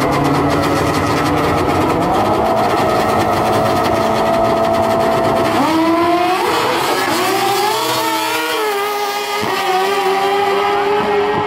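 Drag-racing motorcycles holding revs on the starting line, their engine note stepping up about two seconds in. About six seconds in they launch and accelerate hard, the pitch climbing and dropping back with each gear shift.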